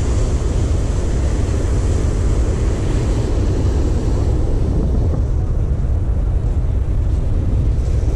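Steady rumbling roar of surf breaking on a sandy beach, mixed with wind buffeting the microphone.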